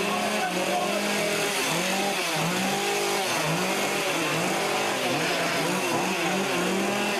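Gas-powered chainsaw engine being revved over and over, its pitch rising and falling about once a second.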